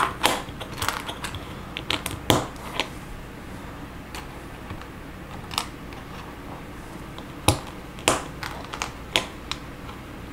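Plastic LEGO bricks clicking as they are picked up, set down on a table and pressed together by hand: irregular sharp clicks, the loudest about two seconds in and near the end.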